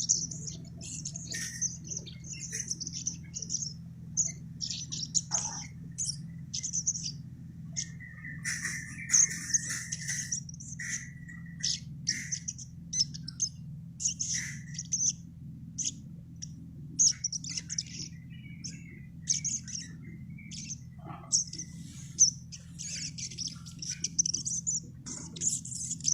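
A sogon, a songbird kept as a cage bird in Indonesia, singing busily: runs of short high chirps and twitters repeated throughout, with some lower whistled notes in the middle, over a steady low hum.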